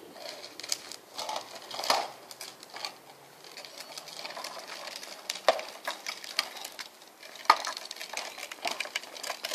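Plastic wheels of a toddler's tricycle rolling and rattling over block paving, a continuous uneven clatter broken by sharp clicks and knocks.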